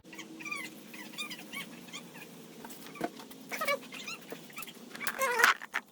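An animal's short, high whining cries, repeated many times over a faint steady hum, with the loudest cries near the end.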